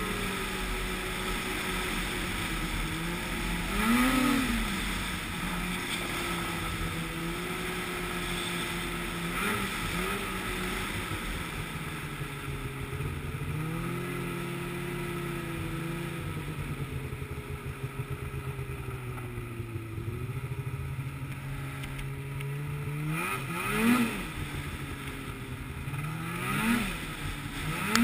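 Snowmobile engine running while riding, its note drifting up and down with the throttle. Short revs rise and fall about four seconds in, near ten seconds, and three times near the end.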